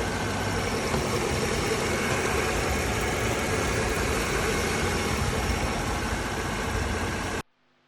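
Mercedes-Benz C300 engine idling steadily after a new alternator has been fitted. The sound cuts off abruptly near the end.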